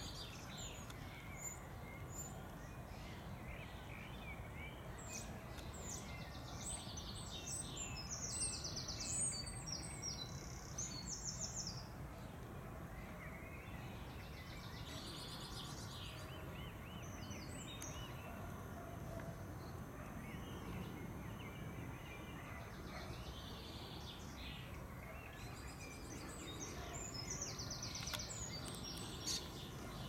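Common starlings calling: a busy mix of short whistles, chatter and fast rattling clicks, heaviest about a third of the way in and again near the end, over a steady low background rumble.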